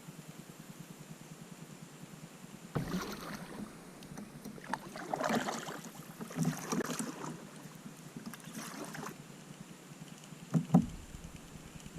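Kayak paddle strokes, the paddle dipping and splashing in the water several times at uneven intervals, starting about three seconds in.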